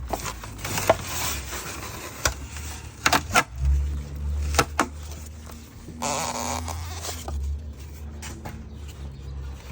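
Scattered sharp knocks and bumps over a low rumble, with a short stretch of hiss about six seconds in.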